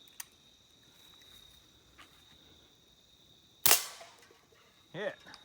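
A single shot from a Beeman Tempest .177 pellet pistol, a sharp crack that dies away quickly, about two-thirds of the way in.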